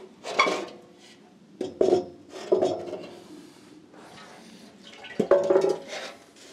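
Burnt fuel tank being lifted out of a race car's tubular metal frame and turned around, knocking and scraping against the frame in four bursts of clanks.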